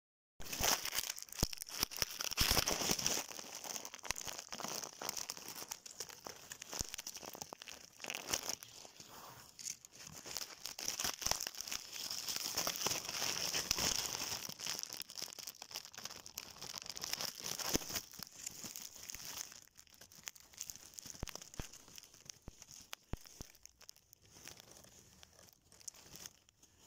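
Dry fallen leaves rustling and crackling right at the microphone as the phone is handled and set down among them. The crackling thins out and grows fainter about twenty seconds in.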